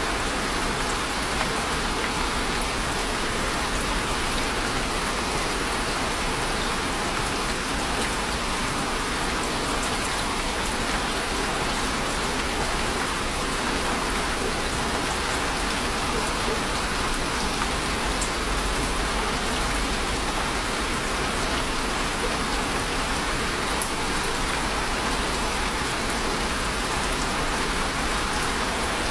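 Steady rain falling on a surface, an even patter with no breaks.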